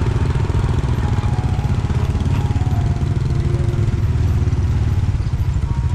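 A vehicle engine running steadily, a loud, continuous low rumble.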